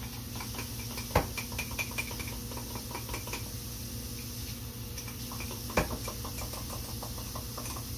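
A spoon stirring in a ceramic mug, clinking rapidly against its sides in two spells, each opening with a louder knock: coconut milk being mixed out with warm water.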